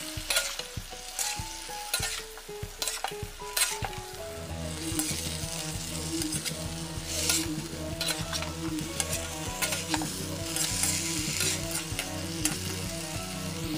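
Chicken and broccoli sizzling in a frying pan while a utensil stirs them, scraping and knocking against the pan again and again.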